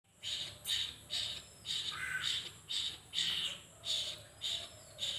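Asian koel fledgling begging to be fed by a myna: a run of harsh, scratchy calls repeated about twice a second. A different, lower call slides down once about two seconds in.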